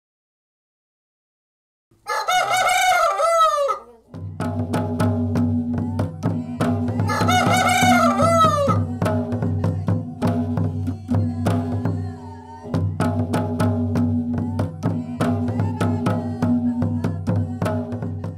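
A rooster crowing twice, first about two seconds in and again about seven seconds in, the second time over music with sustained low notes and a regular percussive beat that starts about four seconds in.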